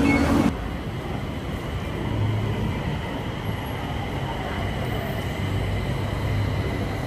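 Steady low rumble of a moving vehicle heard from inside the cabin, with a faint steady hum.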